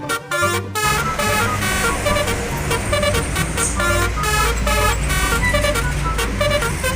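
Multi-tone 'telolet' bus horn playing a quick tune of short toots at changing pitches over a running engine's low rumble, starting about a second in.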